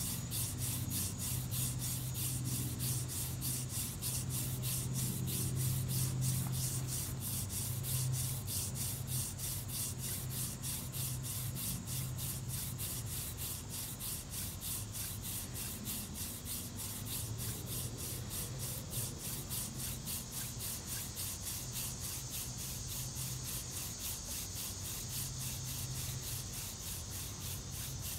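Horseweed hand-drill spindle spun between the palms and grinding into a soft-wood paint-stir-stick fireboard: a continuous rhythmic wooden rubbing at about three strokes a second, over a steady low hum.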